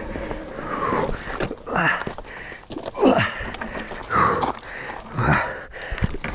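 Rider panting hard from exertion, a loud voiced exhale falling in pitch about once a second.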